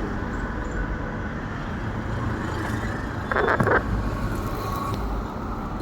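Steady rumble of passing road traffic, with a brief sharper burst of noise about three and a half seconds in.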